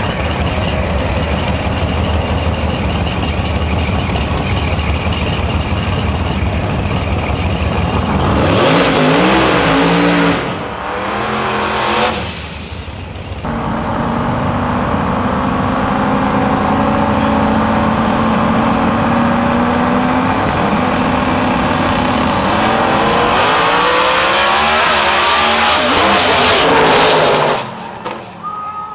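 Twin-turbocharged drag-racing Mustang engines: a loud, dense rumble at the line, a burst of revving about nine seconds in, then a steady engine drone that rises in pitch as the cars accelerate down the strip and cuts off suddenly near the end.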